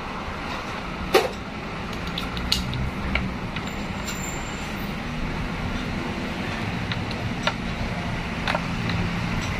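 Steel hand tools clinking against a transmission case while it is worked on: a few sharp metallic clinks, the loudest about a second in, over a steady low rumble.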